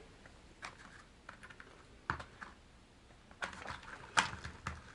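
Light plastic clicks and taps from hands rummaging through a clear compartmented plastic tackle box, scattered at first and busier near the end.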